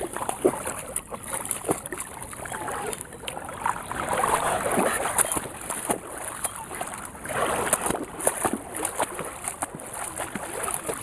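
A dog wading and splashing through shallow floodwater, with a person's steps sloshing through the water behind it. The splashing is irregular and swells louder about four seconds in and again near eight seconds.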